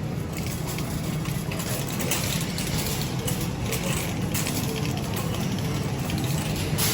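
Car cabin noise: a steady low engine and road rumble under an even hiss from the air conditioning blowing on full blast, with a few faint clicks.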